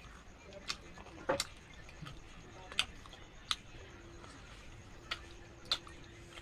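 Mouth sounds of someone chewing and eating gulgula, fried sweet dough balls: sharp, irregular smacks and clicks every half second to a second and a half. A faint steady hum sets in about four seconds in.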